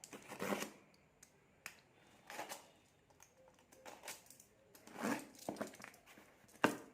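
A parcel's packaging being handled and opened by hand: scattered rustles and crinkles with a few sharp clicks, the sharpest near the end.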